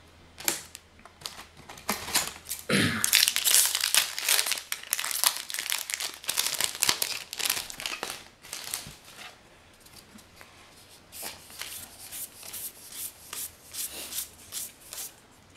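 Foil Magic: The Gathering booster pack wrapper crinkling and being torn open. In the second half it gives way to softer, scattered snaps and clicks of the cards being pulled out and leafed through.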